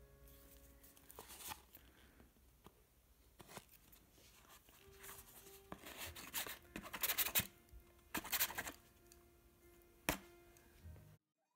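A Lego brick dabbed and scraped through wet acrylic paint on a plastic palette: a run of short, irregular scraping and rubbing strokes, the loudest bunched between about six and nine seconds in. The sound cuts off suddenly near the end.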